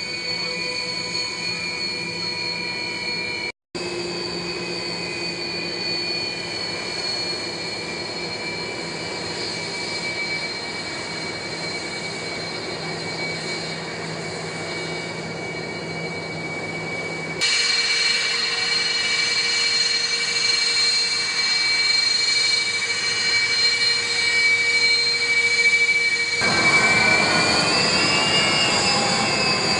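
Jet aircraft engines whining with steady high tones over a broad rush, in several spliced segments. Near the end the whine bends up and then down in pitch as a jet passes.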